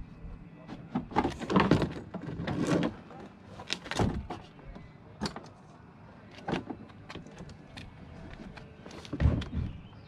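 Irregular clunks, clicks and scrapes of hand tools and the plastic bumper cover being worked off the front of a car, with louder knocks about one and a half seconds in and near the end.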